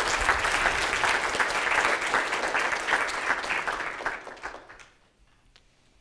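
Audience applauding, many hands clapping at once, thinning out and dying away about five seconds in.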